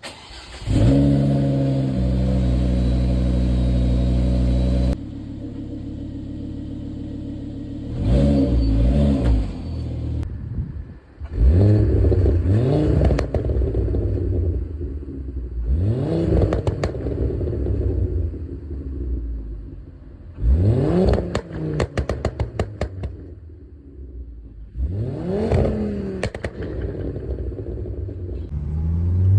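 Volvo C30 T5's turbocharged five-cylinder engine, through a catless downpipe and 3-inch Kpax cat-back exhaust, fires up and holds a high idle, then drops to a lower idle about five seconds in. It is then blipped five times, each rev rising and falling back, with crackles and pops in the exhaust as the revs drop, thickest after the fourth blip.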